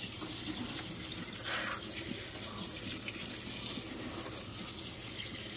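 Tap water running in a steady stream onto a tub of rough petrified wood chunks, splashing over the stones as they are rinsed clean of dust.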